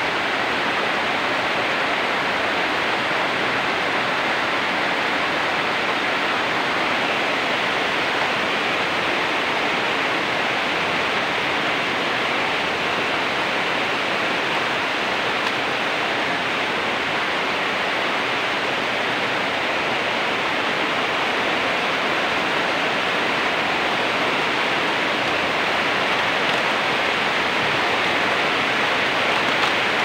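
Steady rain falling, an even hiss with no breaks.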